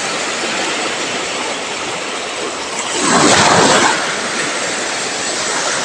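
Steady rush of sea surf against a rocky shore, with a louder wave surge about three seconds in.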